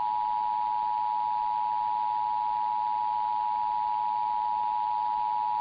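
Emergency Alert System attention signal heard over AM radio: the standard two-tone alarm, two pitches sounded together and held steady. It announces an Amber Alert.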